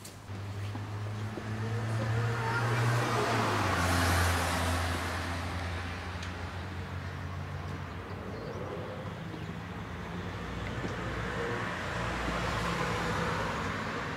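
Road traffic passing: a motor vehicle's engine hum swells and drops in pitch about four seconds in, with a second swell of passing-traffic noise near the end.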